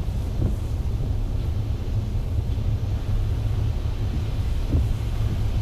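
A car driving, a steady low rumble of road and engine noise, with two faint bumps, about half a second in and near the end.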